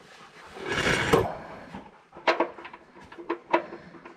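Gloved hand putting the drain plug back into the oil pan of an Isuzu 3LD1 diesel by hand: a brief rubbing scrape about a second in, then a run of light, irregular metallic clicks and taps as the plug is worked into its threads.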